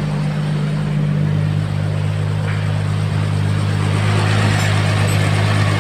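Turbocharged Nissan Skyline GT-R engine idling steadily.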